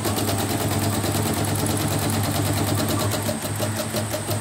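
CNY E900 portable embroidery machine stitching, with rapid even needle-bar clicks (about eight a second) over a steady motor hum. It is a test run after repair, and the machine is running smoothly without any trouble.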